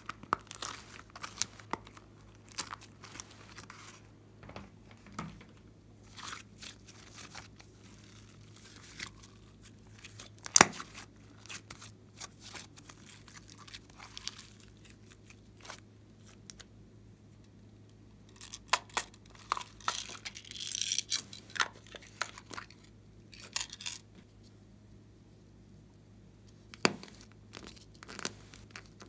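Glossy slime being squeezed, kneaded and stretched by hand, making scattered sticky clicks and pops. The loudest pop comes about a third of the way in, and there is a longer crackling stretch about two-thirds of the way through.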